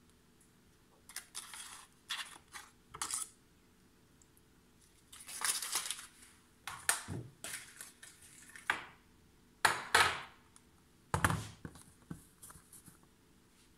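Foil butter wrapper crinkling and rustling in irregular bursts as butter is scraped out of it with a knife, with a few dull knocks of the glass baking dish, the loudest near the end.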